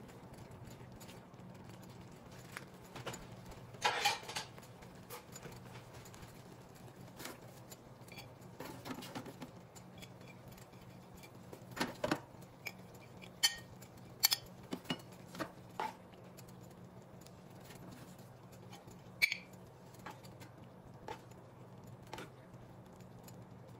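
Scattered clinks and light scrapes of utensils against a stainless skillet and a ceramic plate as mushroom gravy is stirred and spooned out, a cluster of sharp taps near the middle, over a low steady hum.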